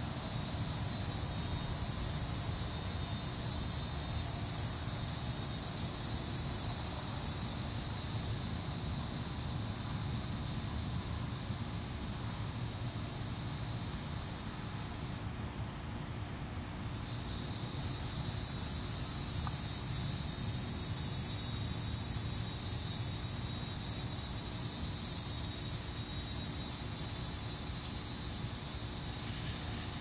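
Chorus of cicadas calling from the trees: a steady high-pitched droning buzz. It fades out for about two seconds around the middle, then swells back up and runs on.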